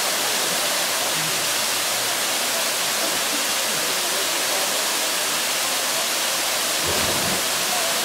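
Waterfall pouring into a rock pool: a steady, even rush of falling water. About seven seconds in, a low thud as a person plunges into the pool.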